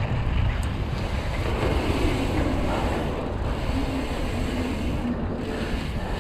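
Mountain bike rolling fast down a dirt trail: a steady rumble of wind buffeting the microphone over the sound of the tyres on soil.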